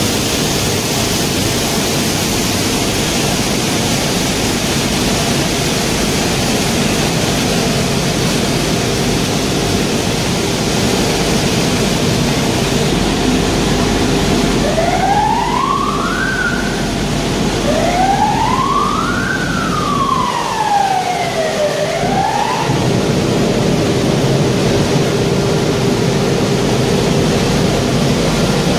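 Waste-tire rubber powder production line running: conveyors, vibrating screens and a blower fan make a steady, dense machine noise with a constant hum. About halfway through, a siren-like wailing tone rises and falls several times over some eight seconds.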